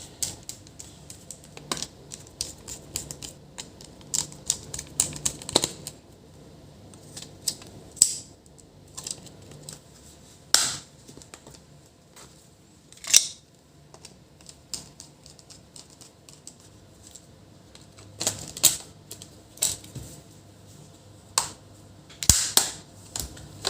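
Irregular sharp plastic clicks and taps from laptop case parts and components being handled and fitted together. The clicks come in clusters near the start and again near the end, with a sparser stretch in between.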